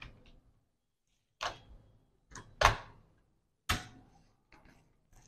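Plastic clicks and knocks as a removable battery pack is pushed and seated into a Lenovo laptop's battery bay: about six separate sharp clicks, the loudest a little under three seconds in.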